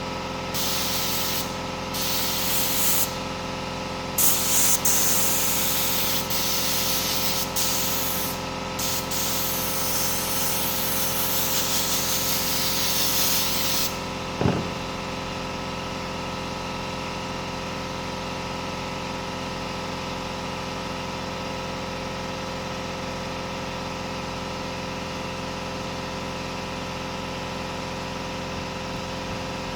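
Compressed-air spray hissing in repeated short bursts, typical of a spray gun laying down upholstery adhesive, over a machine's steady hum. A single knock comes about halfway through; after it the spraying stops and only the hum goes on.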